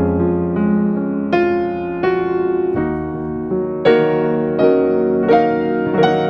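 Background piano music: a slow melody of single sustained notes over held chords.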